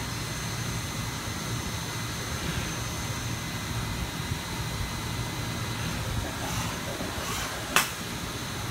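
Centroid B4250 4-axis CNC machining center running a probing cycle on an engine block: a steady low hum with a faint high whine. A single sharp click comes near the end.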